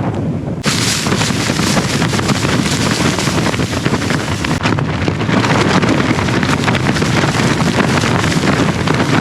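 Strong wind blasting the microphone: a loud, continuous rumbling roar with crackling distortion, getting harsher and brighter about half a second in.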